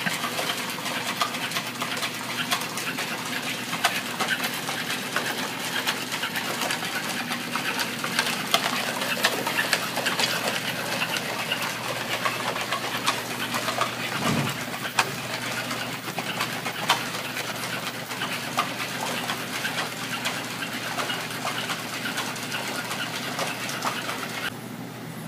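NAO humanoid robot walking, with a steady whir from its joint motors and many irregular light clicks and taps as it steps on carpet. The sound cuts off sharply near the end.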